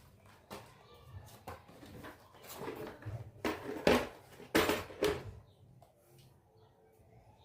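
Handling noise from working on a speaker cabinet: scattered clicks and knocks, with two louder rasping, rustling noises of about half a second each near the middle.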